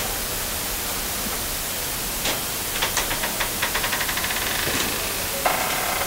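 Fold-down wall bed being swung down from its cabinet: a couple of faint clicks, then a quick run of ticks from the mechanism and a short squeak near the end, over a steady hiss.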